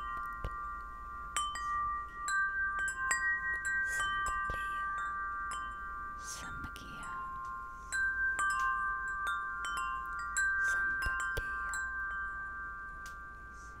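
Metal tube wind chimes ringing, with several overlapping notes struck again and again and left to ring on.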